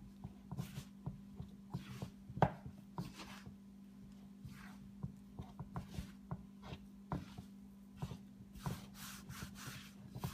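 Hands kneading soft pizza dough in a large ceramic bowl: irregular soft slaps, squishes and light knocks against the bowl, the loudest about two and a half seconds in, over a faint steady hum.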